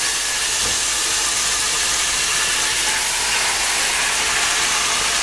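Chicken fillets sizzling steadily in hot melted butter in a cooking pot.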